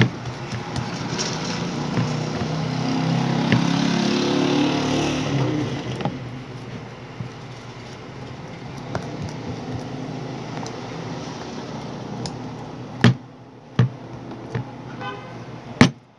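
A motor vehicle passing by, its engine growing louder and then fading over a few seconds, followed by a few sharp clicks near the end.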